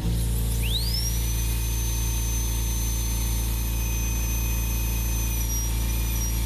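Handheld rotary carving tool switched on, its whine rising in pitch over about the first second as it spins up, then running steadily at high speed over a low hum. Its football-shaped burr is worked lightly over the carved wood to smooth and burnish the scales.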